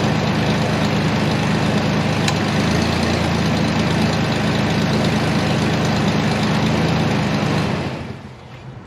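2003 Ford Ranger's 3.0L V6 idling steadily, freshly refilled with oil. The sound dies away about eight seconds in.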